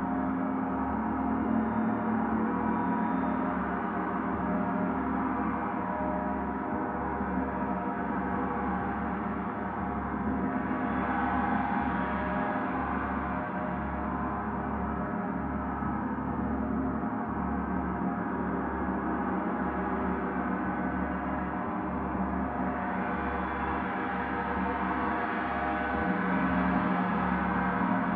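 Several gongs played together in a continuous wash of overlapping ringing tones, with a low pulsing hum beneath. The wash swells around the middle and again near the end.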